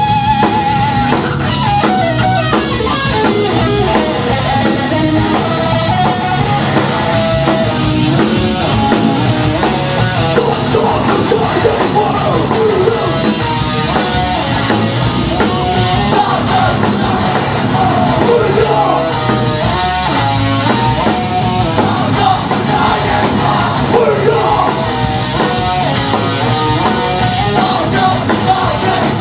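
Metallic hardcore band playing live: heavily distorted electric guitars, bass and pounding drums, with shouted vocals over the top, loud and unbroken throughout.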